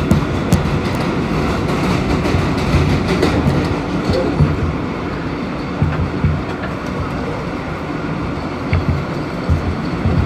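Inside an Alstom R160A New York City Subway car running at speed on elevated track: a steady rumble of steel wheels on rail, with sharp clicks from the rails, most of them in the first second or two.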